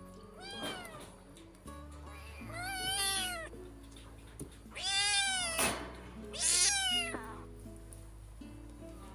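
Young kitten meowing four times, each high cry rising and then falling in pitch, with the louder ones in the second half; soft background music underneath.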